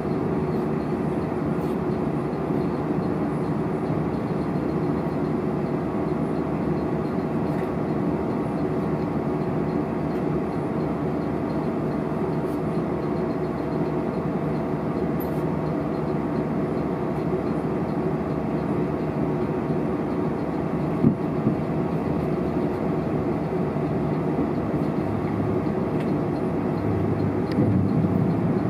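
Steady running noise heard inside a moving electric passenger train carriage: wheels on the rails and the hum of the train in motion. There is a single sharp knock about 21 seconds in, and the low rumble grows louder near the end.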